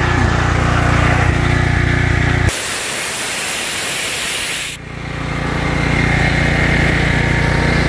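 Portable generator engine running steadily, interrupted about two and a half seconds in by a loud hiss of compressed air released from a Bostitch pancake compressor's tank. The hiss lasts about two seconds and cuts off suddenly, then a steady motor hum builds back up.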